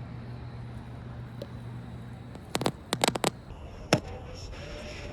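Sharp crackles and pops over a low steady hum: a cluster of them about two and a half to three and a half seconds in, then one louder pop near four seconds, and the hum stops partway through.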